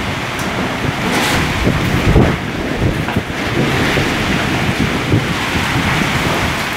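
Kalbaishakhi (nor'wester) storm: strong wind gusting with heavy rain, the wind buffeting the microphone in irregular low rumbling surges.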